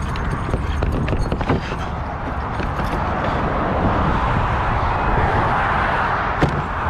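Steady rush of highway traffic, with a few light knocks.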